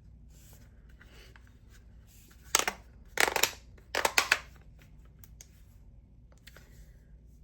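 Plastic clicking and rattling in three short clusters, the loudest a little past the middle, as the adjustable parts of a plastic camping lantern are turned and handled.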